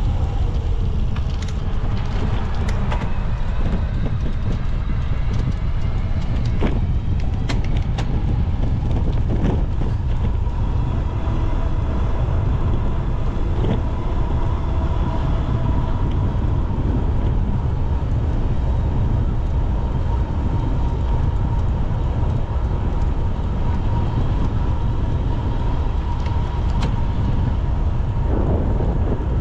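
Wind rumbling on the microphone of a moving bicycle over city traffic noise, with a thin steady whine through most of it and a few short clicks.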